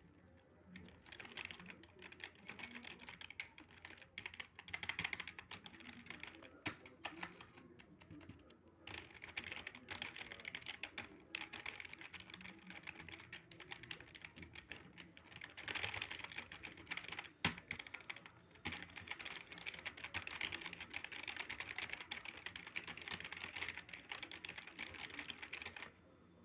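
Fast, continuous typing on a cheap membrane keyboard fitted with soft squeakers under the keycaps, which act as springs and give each keystroke a click, made by the indent on the sides of the hinge. The typing starts about a second in and pauses briefly twice.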